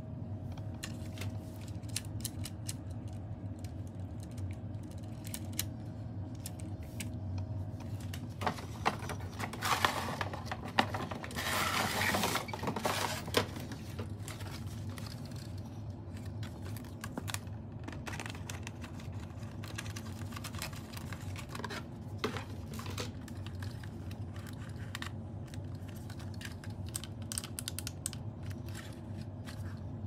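Cardboard packaging and a plastic RC steering-wheel controller being handled during an unboxing: scattered light clicks and taps throughout, with a louder stretch of rustling and scraping for a few seconds in the middle. A steady low hum runs underneath.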